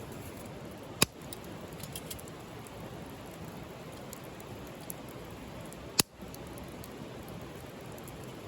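Wood fire in a wood-burning grill crackling steadily with faint ticks, and two sharp, loud pops about five seconds apart.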